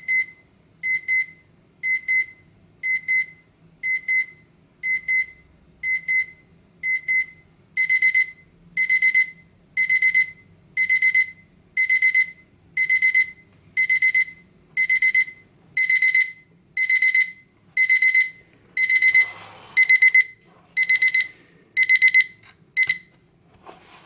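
Seiko QHE195 alarm clock's electronic beep alarm: a high, pitched beep repeating about once a second, starting as short double beeps and growing louder and longer over the first several seconds, the escalating alarm pattern. Some rustling noise comes in near the end, and the beeping stops about a second before the end.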